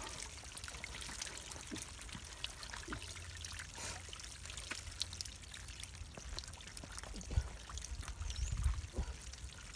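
Quiet trickling of shallow water over wet mud, with many small wet clicks and crackles. A few dull low thumps come near the end.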